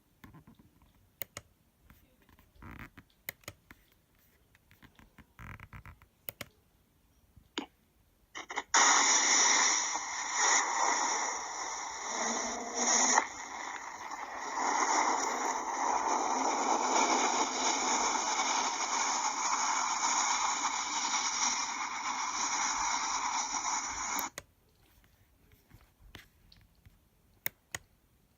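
Loud, steady static hiss that starts abruptly about nine seconds in and cuts off sharply about fifteen seconds later. Faint scattered clicks come before and after it.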